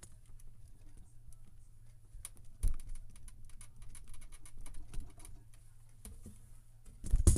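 Copic marker nib working over a cardstock die cut: a run of light, scratchy taps and strokes on the paper, with a sharper click about two and a half seconds in and a louder knock near the end.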